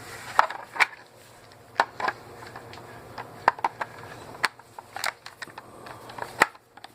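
A Phillips screwdriver and hands working screws out of a plastic landline telephone's case: scattered sharp clicks, ticks and light scrapes of metal on plastic, about a dozen in all.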